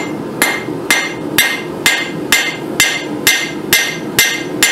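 Hand hammer striking red-hot 1/4-inch mild steel round stock on the edge of a steel anvil: about ten evenly spaced blows, roughly two a second, each with a short metallic ring. The blows are flattening the bar's end into the ledge that forms the head of a hook.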